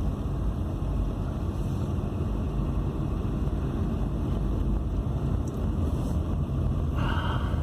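Car cabin noise while driving slowly: a steady low rumble of engine and tyres on the road. A short higher-pitched sound comes in near the end.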